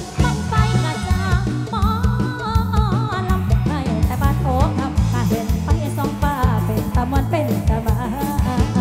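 Isan luk thung band music: a heavy, steady bass and drum beat under a wavering lead melody.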